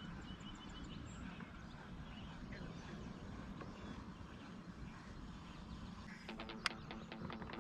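Faint outdoor ambience on open water: a steady low rumble with a short run of faint bird chirps in the first second. About six seconds in, an even ticking beat with a single sharp click comes in as music starts.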